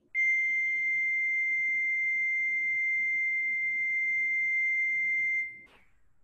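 A steady, high-pitched electronic test tone: one pure pitch held for about five and a half seconds, then stopped.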